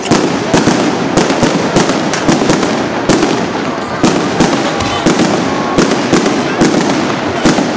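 Aerial fireworks bursting close overhead: loud, sharp bangs coming several a second at irregular intervals over a continuous noisy background.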